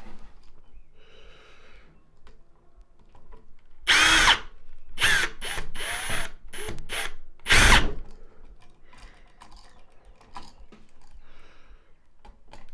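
Power drill driving a screw down tight, run in a few short bursts around the middle, its motor whine rising each time it spins up.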